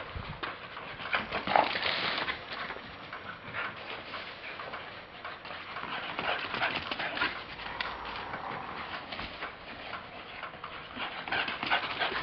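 Greyhound running laps in a yard: a quick, irregular run of footfalls and clicks from her paws on concrete.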